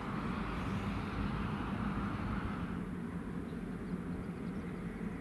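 Two diesel-electric road locomotives running light, their engines a steady low drone with a constant hum.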